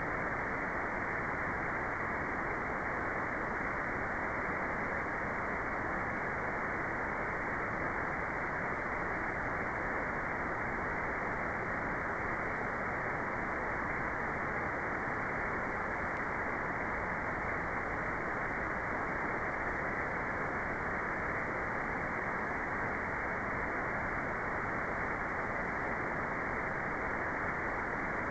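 Steady electronic white noise, filtered so that the highs are cut off sharply, giving an even, muffled hiss that never changes.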